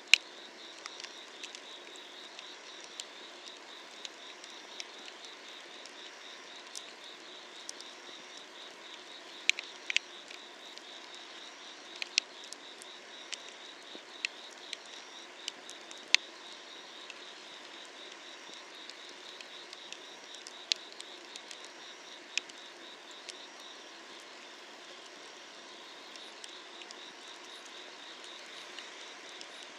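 Firewood burning under an iron cauldron, crackling with irregular sharp pops, several of them loud. Behind it, insects chirp in a steady pulsing trill.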